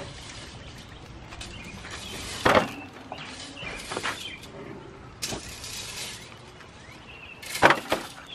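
Grilled corn cobs and tongs knocking against a disposable aluminium foil pan as the cobs are set in: two sharp hits, about two and a half seconds in and near the end, with lighter knocks between.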